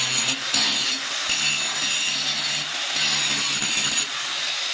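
A drill bit being ground in a powered drill-bit sharpener: a steady, gritty grinding hiss over a low motor hum that fades and returns.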